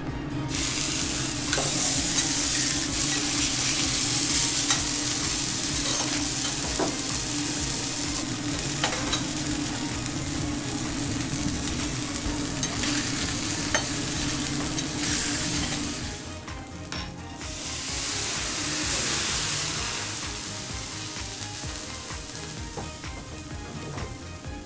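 Wagyu beef steaks sizzling on a hot teppanyaki griddle, a steady frying hiss with a few light metal clicks. The sizzle drops away briefly about two-thirds of the way through, then comes back and tails off near the end.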